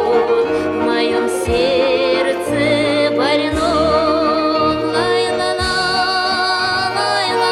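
Background music: a slow song with singing, long notes held with vibrato over a bass line and a low beat about every two seconds.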